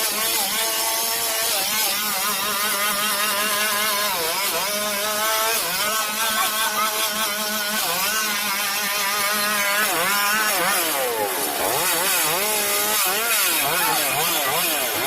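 Chainsaw cutting through a fallen tree's wood, its engine pitch wavering up and down as the chain loads and frees in the cut. In the second half it dips sharply several times as the saw bogs and revs back up. A steady lower hum runs underneath.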